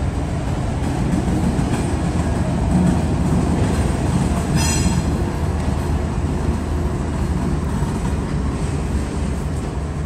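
BNSF freight train passing with its diesel locomotive, a steady low rumble of engine and wheels on the rails. A brief high-pitched squeal about halfway through.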